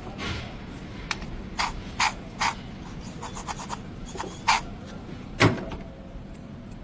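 Irregular sharp clicks and short scrapes, about eight in all, the loudest two in the second half: hand tools and parts being handled during a serpentine belt tensioner replacement.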